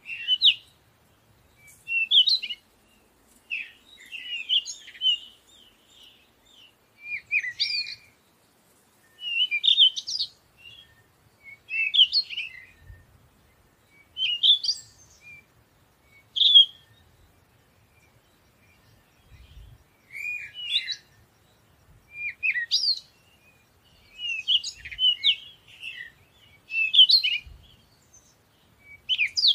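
Songbirds chirping: short, high twittering phrases repeating every second or two.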